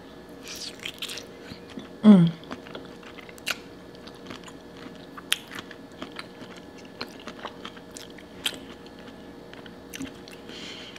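Close-miked mukbang eating sounds: a bite into a sauce-covered boiled potato piled with shrimp, then chewing with many small wet mouth clicks and smacks. A short hummed "mm" about two seconds in.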